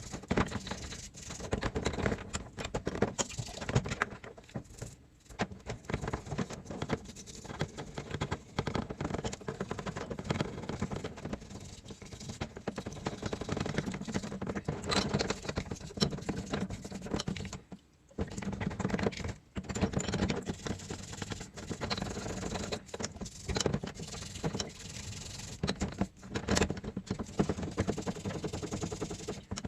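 Hand work on motorcycle engine parts: metal parts and tools clicking, rattling and scraping, an irregular run of small knocks.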